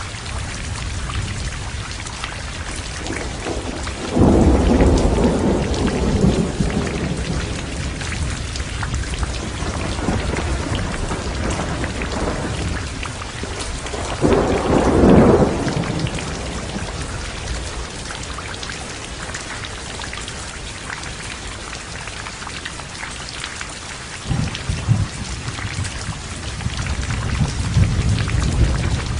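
Heavy rain falling steadily with thunder: a sudden clap about four seconds in that rolls on for a few seconds, another around the middle, and rumbling that builds again near the end.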